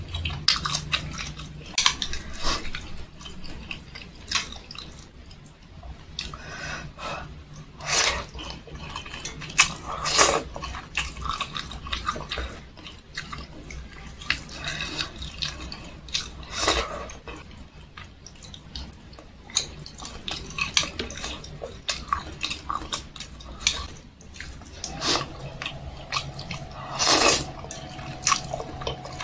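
Close-up eating sounds of chicken noodles and meatballs: wet chewing and lip smacking in irregular short bursts, with occasional light clicks of chopsticks against a stainless steel bowl. A longer slurp of noodles comes near the end.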